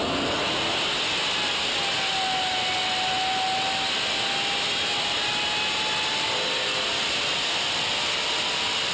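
Supercharged V8 on an engine dyno running hard at full throttle under load during a dyno pull. It is a loud, steady sound whose pitch climbs slowly as the revs rise.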